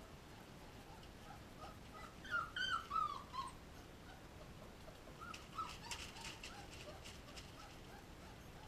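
Young puppies whimpering in short, high squeaks: a run of several whines about two to three and a half seconds in, and a few more around five to six seconds, with faint scratchy clicks in between.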